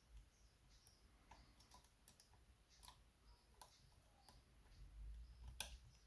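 Faint, irregular clicks of a lock pick working the pin stack of a 3-star kite-marked maXus euro cylinder lock, the loudest click about five and a half seconds in.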